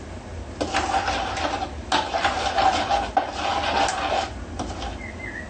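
Scraping and rattling of a utensil working in a ceramic bowl as flour is stirred into the gravy mixture, in three spells of about a second each, with a steady ringing tone through them.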